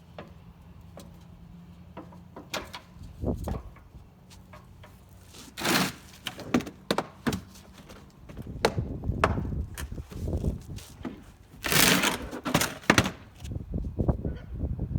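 Irregular clicks, knocks and clatter of hand tools working on a truck's fog light mount as its Torx screws are taken out. Two louder, noisier bursts come about six seconds in and about twelve seconds in.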